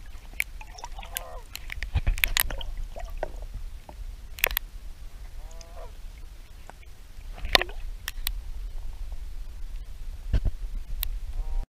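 Ducks quacking a few times, among sharp knocks and clicks over a low rumble.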